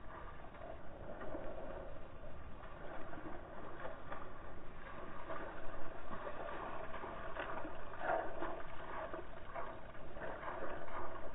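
Water splashing and sloshing as a German shepherd wades and runs through a shallow river, in an irregular run of splashes that grows a little louder about two-thirds of the way in.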